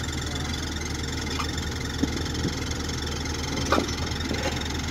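Engine of a harvest machine idling steadily with a low hum, with a few faint knocks about two seconds in and again near four seconds.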